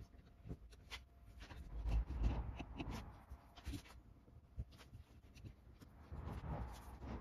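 Faint scratching and light clicks of fingers and tweezers picking small pieces of vinyl mask off a carved oak sign, with a dull bump about two seconds in.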